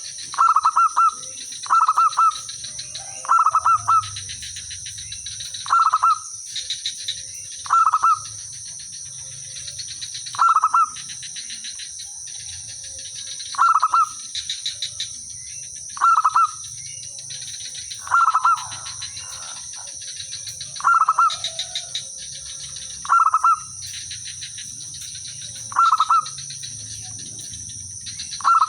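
Zebra dove (perkutut) singing: a short staccato cooing phrase repeated about every two to three seconds, with fainter coos between the loud phrases.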